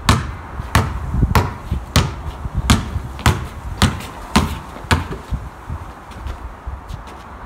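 A basketball being dribbled on paving slabs: a regular run of sharp bounces, a little under two a second, that stops about five seconds in, leaving only faint taps.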